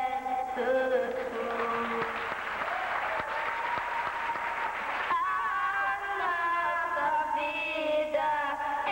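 Live music: two singers singing into microphones with guitar accompaniment. About two seconds in the voices drop out under a stretch of hiss-like noise with one held note, and the singing comes back in about five seconds in.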